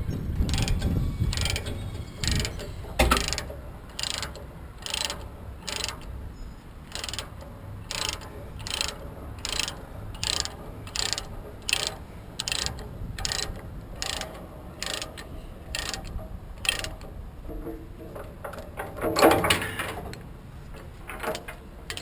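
Ratchet chain load binder being cranked to slacken a tie-down chain on a lowboy trailer load, its pawl clicking about twice a second. Near the end comes a louder clatter.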